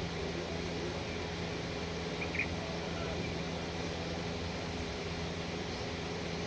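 Steady low mechanical hum with hiss, and one brief high chirp-like sound about two and a half seconds in.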